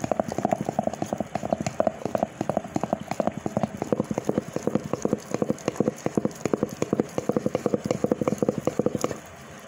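Hand-twirled madhani churning thick cream in a steel bowl: a fast, even clatter of several knocks a second over a thick churning swish, as the cream stiffens and begins to come away from the bowl's sides on its way to butter. The churning stops abruptly near the end.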